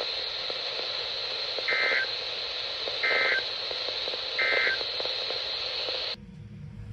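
NOAA Weather Radio SAME end-of-message code: three short identical bursts of digital data tone, each about a third of a second and roughly 1.3 s apart, over steady radio static. They mark the end of the weekly test broadcast. The static cuts off abruptly about six seconds in.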